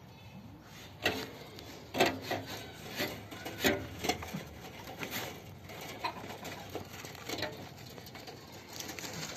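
Irregular knocks, scrapes and rustling of old wooden boards and dry debris being handled in a cramped gap, with a few sharper knocks about a second apart early on, then smaller clicks and rubs.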